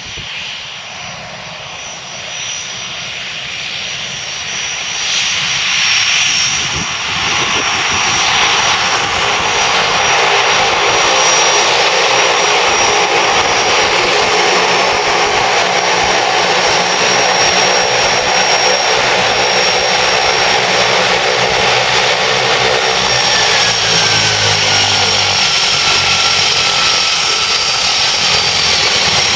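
Twin turboprop engines (Pratt & Whitney Canada PT6A) of a de Havilland Canada DHC-6 Twin Otter running as the plane taxis in after landing. The sound grows louder over the first eight seconds or so as it comes closer, then holds steady: propeller and exhaust noise under a high turbine whine.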